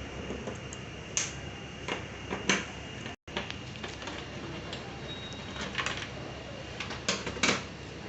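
Scattered light clicks and knocks of parts and tools being handled during TV repair work, over a steady background hiss; the sound cuts out completely for an instant about three seconds in.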